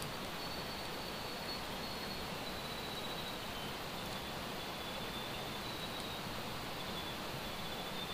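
Outdoor bush ambience: a steady rushing hiss with thin, high insect trills that come and go.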